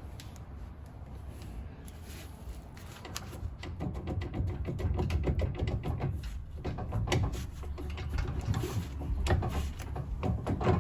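Metal clicks, knocks and scraping from handling the front wheel hub and brake drum, getting busier and louder from about four seconds in.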